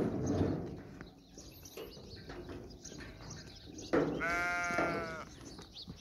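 A goat bleats once, a single drawn-out call of about a second starting around four seconds in, over the soft shuffling and small knocks of the herd.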